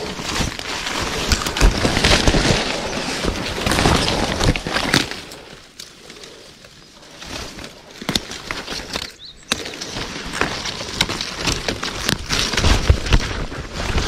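Rustling of undergrowth with many sharp snaps and cracks of twigs and stems, quieter for a couple of seconds in the middle.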